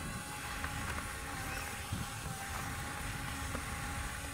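Small 6–12 V DC motors of a homemade model bucket wheel excavator running steadily as the wheel scrapes sand, with a faint thin whine over low, uneven rumbling noise.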